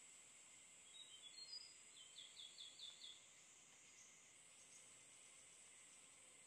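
Faint forest ambience: a steady high insect hum, with a small bird's brief chirps about a second in and a quick run of five notes between two and three seconds.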